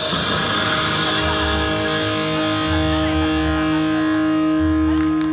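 Music: a distorted electric guitar holding a long, steady chord over low pulsing bass notes.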